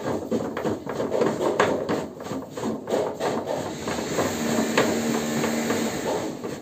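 Rapid knocking and scraping, several strikes a second, from hands working at a flanged butterfly valve on a large plastic pipe, with a brief low steady hum about four seconds in.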